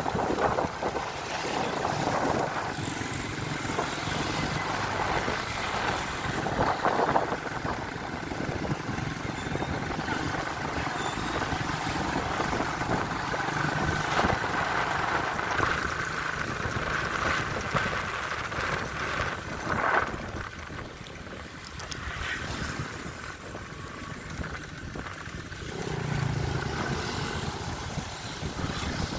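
Wind buffeting the microphone on a moving motorcycle, with the motorcycle's engine running underneath. It is quieter for a few seconds about two-thirds of the way through.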